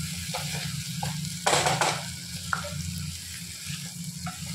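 Wooden spatula stirring and scraping a thick cooked vegetable mash in a non-stick kadhai, with a low sizzle and a steady low hum underneath. There are a few short scrapes, and a louder one lasting about half a second comes about a second and a half in.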